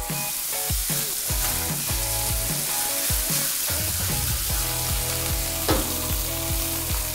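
Elk shoulder searing in smoking-hot oil in a cast-iron skillet: a loud, steady sizzle that starts the moment the meat goes into the pan, the browning stage of a braise.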